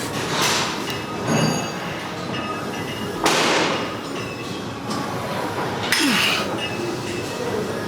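Gym weights clinking and clanking, with about four metallic knocks over a steady background hum; the loudest comes about three seconds in.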